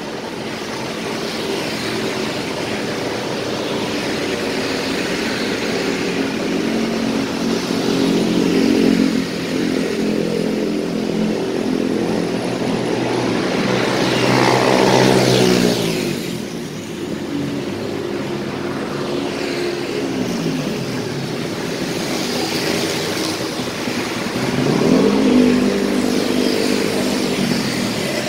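Busy road traffic of motorcycles and cars passing close by, engines rising and falling. About halfway through a vehicle passes loudly, its engine note sliding down as it goes by, and another loud pass comes near the end.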